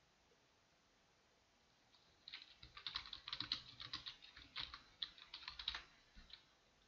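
Typing on a computer keyboard: a quick run of keystrokes begins about two seconds in and lasts about four seconds.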